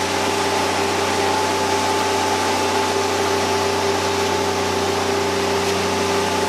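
A machine running steadily: a hiss of moving air with a low hum and two steady whining tones. None of it changes.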